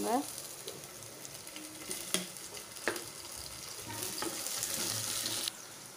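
Onions, green chillies and curry leaves sizzling in hot oil in a clay pot as they are stirred with a wooden spoon, which knocks against the pot twice. The sizzle grows louder about four seconds in and cuts off suddenly near the end.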